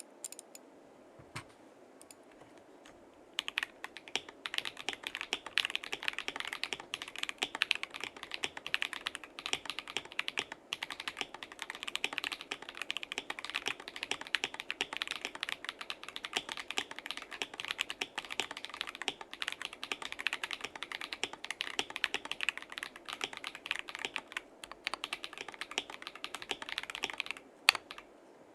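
Typing on a mechanical keyboard with stock, unlubed Akko CS Lavender Purple tactile switches in a KBD67 Lite gasket-mount case with a polycarbonate plate and dampening. A few single keystrokes come first, then fast continuous typing for most of the time, with a short break and a sharper clack near the end before it goes on.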